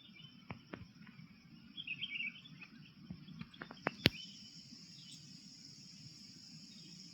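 Garden ambience: a steady high insect drone with a bird chirping briefly about two seconds in. Several sharp clicks cut through it, the loudest about four seconds in.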